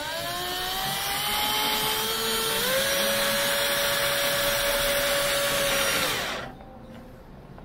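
Electric drill running while drilling holes in a PC case's front panel. Its motor whine climbs in pitch, steps up about two and a half seconds in, then winds down and stops about six seconds in.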